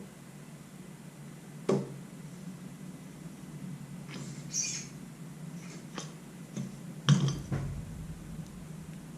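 Motorcycle front fork parts being handled while a new fork seal is fitted: a few scattered metal knocks and clicks, the loudest about seven seconds in, and a short high squeak about four and a half seconds in.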